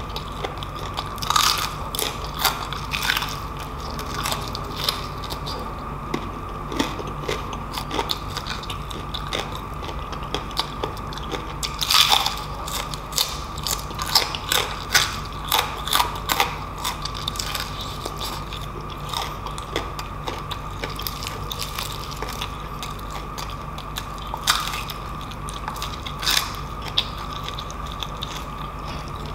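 Close-miked chewing of crispy deep-fried pork knuckle: irregular sharp crackling crunches of the fried skin as it is bitten and chewed, bunched in clusters, with the loudest run around the middle. A steady high hum and a low hum sit underneath.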